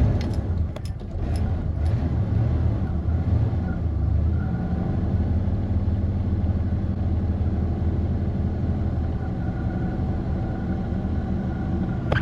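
1972 Chevy Nova's engine idling steadily just after start-up, with a few light clicks in the first two seconds. A faint steady whine joins about four seconds in.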